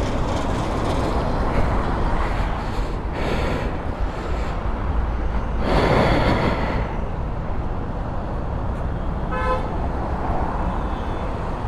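Steady roadside traffic noise, swelling louder around six seconds in, with a vehicle horn giving one short honk about nine and a half seconds in.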